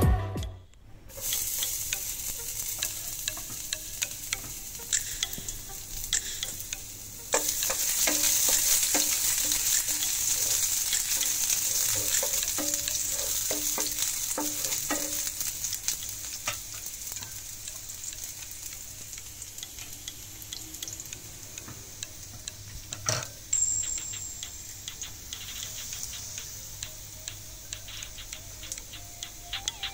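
Minced garlic sizzling in hot cooking oil in a nonstick frying pan, stirred with a wooden spatula that scrapes and taps the pan. The sizzle jumps up sharply about a quarter of the way in, then eases off gradually, with one sharp knock on the pan about three-quarters of the way through.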